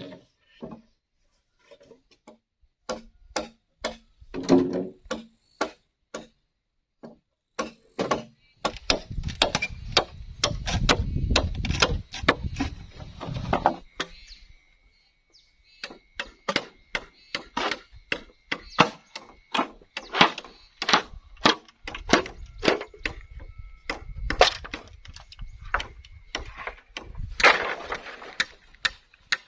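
Repeated sharp chopping and whacking on wood, irregular and at times several blows a second, as bamboo is chopped and worked by hand.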